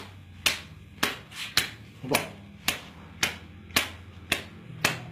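Sharp taps on a forearm, evenly spaced at about two a second, made to draw a susuk charm needle out from under the skin.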